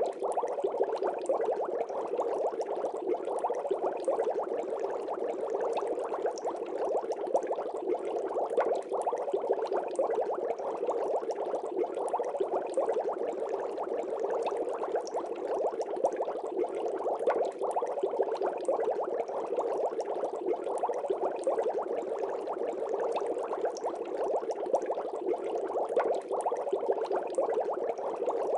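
Aquarium water bubbling steadily, a dense, even stream of small bubbles popping.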